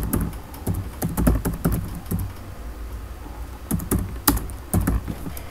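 Computer keyboard typing: quick runs of key clicks, with a gap of about a second and a half in the middle.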